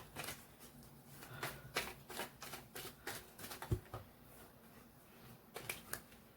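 Tarot cards being shuffled by hand: faint, irregular card clicks and rustles, thickening near the end, with one soft low thump a little under four seconds in.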